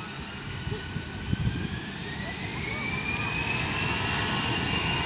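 Airliner engines spooling up for take-off: a whine rises steadily in pitch for about four seconds and then holds, over a low rumble that grows louder.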